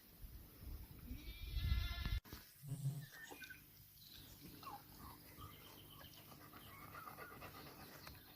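A farm animal gives one drawn-out, wavering call about a second in, with fainter short calls afterwards.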